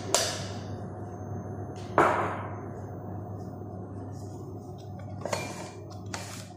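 Kitchen utensils and containers clinking and knocking while ingredients are being handled: four sharp knocks with a brief ring, the loudest about two seconds in, over a steady low hum.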